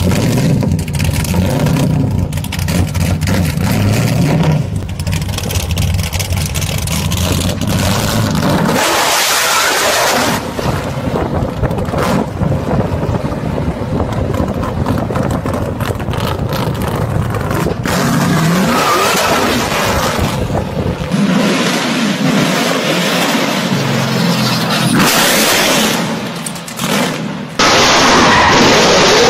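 The LS3 V8 of a carbon-bodied Nissan Silvia running and accelerating, heard from a car following it. The sound changes abruptly several times: a strong low rumble at first, then thinner and noisier stretches.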